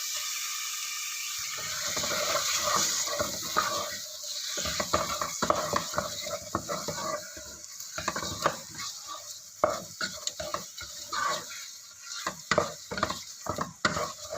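Chicken frying in a pan of oil-cooked curry paste: a steady sizzle, then from about a second and a half in, stirring with a utensil scraping and knocking against the pan many times.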